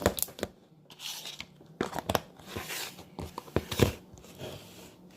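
Metallic slime being squished and pulled by hand: a run of sticky clicks, pops and short crackles, loudest a little under four seconds in.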